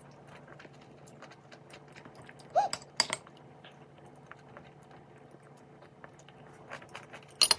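Faint small clicks and taps of dishes and utensils at a meal, with a sharper knock about three seconds in. Just before the knock comes one short pitched sound that rises and falls.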